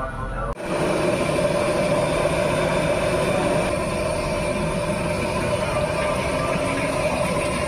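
Steady roar of a gas stove burner under a wok of hot oil, with the oil sizzling; it starts suddenly about half a second in.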